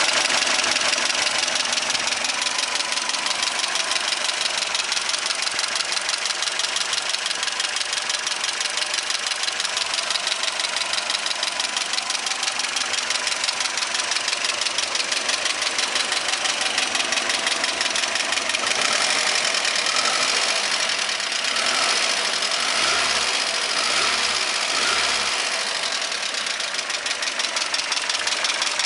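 ZMZ-402 inline-four petrol engine running with a fast, regular knock that seems to come from around the number-one cylinder. A few short swells in the engine sound come about two-thirds of the way through.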